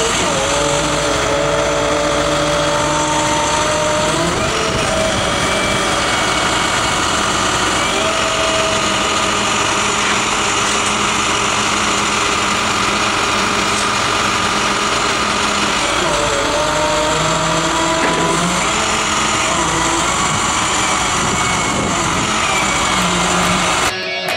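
Flatbed tow truck's engine running steadily with its hydraulics engaged while the operator works the bed controls. A thin whine rises slowly in pitch twice, once in the first few seconds and again past the middle.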